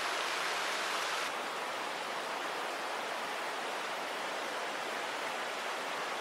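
Steady rushing of river water, an even hiss. The brightest part of the hiss drops off slightly about a second in.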